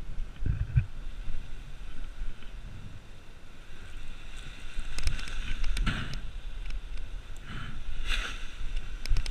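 Wind buffeting the microphone in an uneven low rumble, with a few louder bursts of rustling in the second half.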